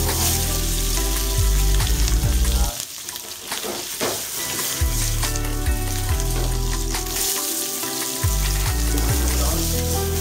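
Sliced green chilies and onion pieces sizzling as they fry in hot oil in a frying pan, a steady hiss over background music with a heavy bass.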